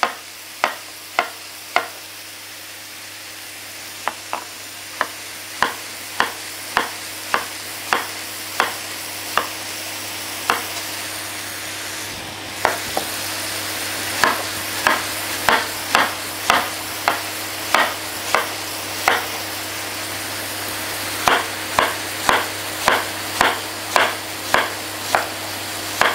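Chef's knife chopping an apple on a plastic cutting board, about two strokes a second in runs with short pauses. Under it, the steady sizzle of apple pieces cooking in a frying pan.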